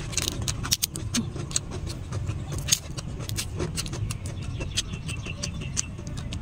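Crisp, irregular crackles and clicks of roasted shrimp shell being peeled apart by hand, mixed with chewing, over a steady low rumble.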